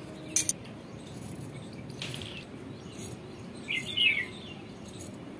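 Scissors cutting through folded cotton fabric, faint, with a sharp click just after the start. A bird chirps briefly about four seconds in.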